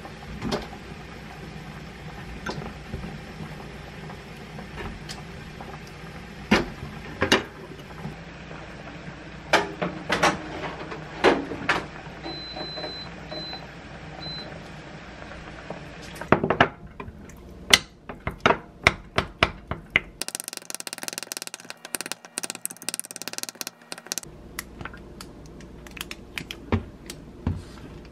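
Kitchen handling sounds: scattered knocks and clicks as raw shrimp are laid into a metal mesh air-fryer basket. About twelve seconds in, a Zolele air fryer oven's touch panel beeps as it is set, one longer beep followed by two short ones. A quick run of clicks and taps follows.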